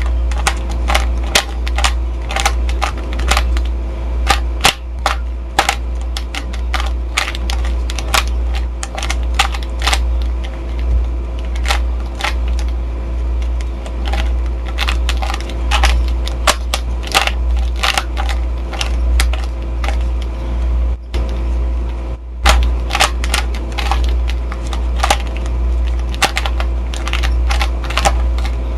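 Plastic Rubik's Cube layers being turned in quick, irregular succession during a solve, a rapid run of clicks, over a steady low electrical hum.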